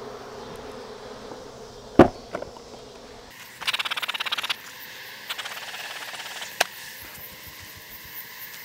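Wooden hive boxes being pried apart with a hive tool: a sharp crack about two seconds in, then quick rasping creaks and another click, with faint bee buzzing behind.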